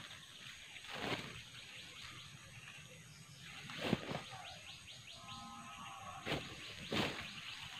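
Woven plastic sack rustling and crinkling in several short swishes as it is handled, with birds chirping in the background.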